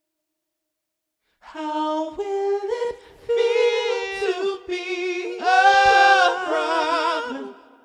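Unaccompanied voices singing long held notes, several pitches at once, coming in about a second and a half in. The last notes waver with vibrato and fade out near the end.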